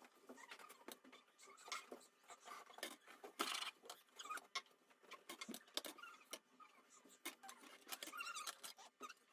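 Faint, scattered clicks and light scrapes of hands handling a small plastic speaker case and its parts, with one longer scrape about three and a half seconds in.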